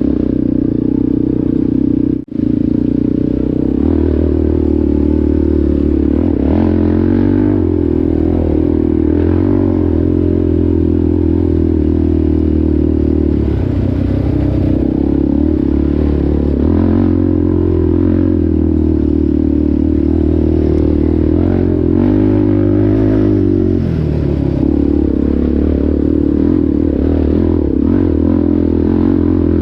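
ATV engine running under way, its pitch shifting a few times with the throttle, with rattling and clatter over it. The sound cuts out very briefly about two seconds in.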